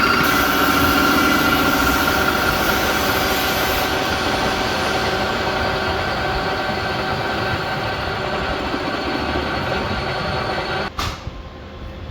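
Kubota tractor's diesel engine running steadily, cutting off abruptly about eleven seconds in.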